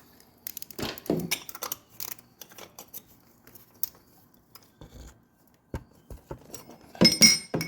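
Metal hand tools being handled during a motorcycle oil change: scattered light clicks and knocks, with a louder cluster of ringing metallic clinks near the end.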